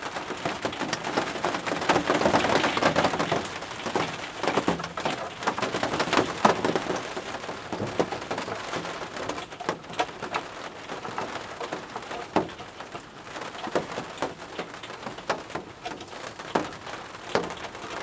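Rain pattering on a polycarbonate greenhouse roof, with scattered clicks and knocks as the plastic camera unit of a bird feeder is handled.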